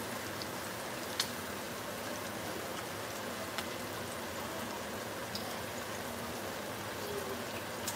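Thick pork chops frying slowly in a skillet of oil: a steady, even sizzle with a few faint pops.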